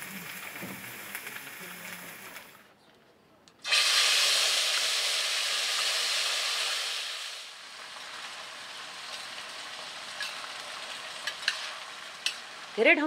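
Soybeans sizzling in a hot metal pan as they are stirred. The sizzle starts suddenly and loud about four seconds in, eases to a softer steady sizzle a few seconds later, and a few sharp clicks come near the end.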